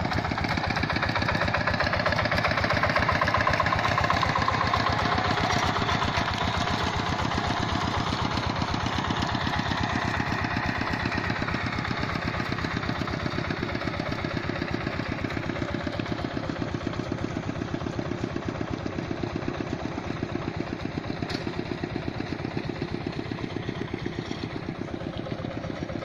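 Two-wheel hand tractor's single-cylinder engine running steadily under load as it ploughs a flooded rice paddy, with an even, rapid firing beat. It slowly grows quieter after the first few seconds as the tractor moves away.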